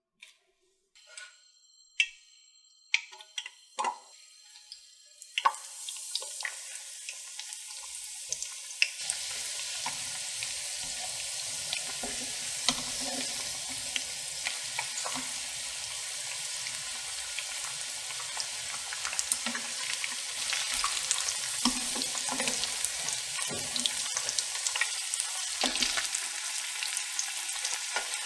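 A few sharp knocks, then from about five seconds in hot oil sizzling and crackling steadily as corn dogs deep-fry.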